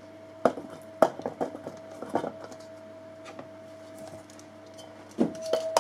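A metal bowl and a wire-caged coil device being handled and set down, with a few sharp knocks and clatters spread through, and a cluster near the end. Under them runs a steady electronic tone at two held pitches.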